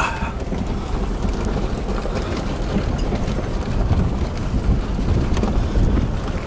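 Inside the cab of a 4x4 crawling along a rocky desert trail: the engine runs low and steady, with the tyres crunching over gravel and loose rock.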